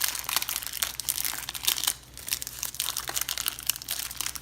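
Packaging crinkling as a speed cube is unwrapped by hand: a dense run of crackles, with a brief lull about two seconds in.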